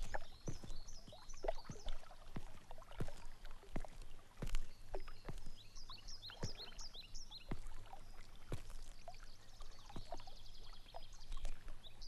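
Outdoor ambience: birds chirping in three bursts of short repeated notes, over soft lapping water and scattered light knocks.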